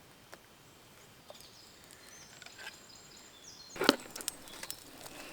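A single sharp crack of wood about four seconds in, followed by small scattered crackles, with faint high bird chirps before it.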